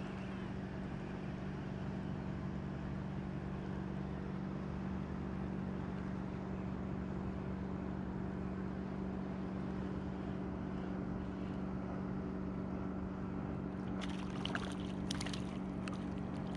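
Steady low drone of a boat engine, even and unchanging. Near the end, a few short splashes as a hooked fish thrashes at the surface beside the angler's hand.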